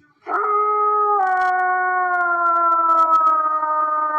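A canine howl. It starts about a quarter second in as one long, held note that slowly falls in pitch.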